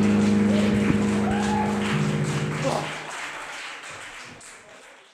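A rock band's final chord ringing out steadily from the guitar and bass amplifiers, cutting off about three seconds in, over audience applause and cheering that fades away near the end.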